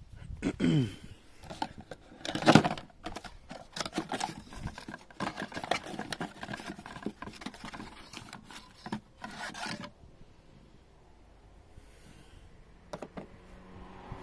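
Clicks, scrapes and rustling as plastic filter parts and a cardboard filter box are handled, with a short squeak falling in pitch less than a second in and a louder knock about two and a half seconds in. The handling noises die down for the last few seconds.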